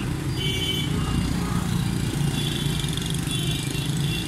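Busy roundabout traffic: a steady hum of many scooter and motorbike engines and passing cars. A thin high tone sounds briefly about half a second in and again through the second half.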